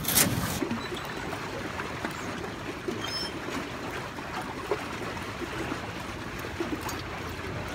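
Water trickling and lapping around an aluminium canoe, as a steady soft wash with small scattered ticks. A short, loud burst of noise right at the start.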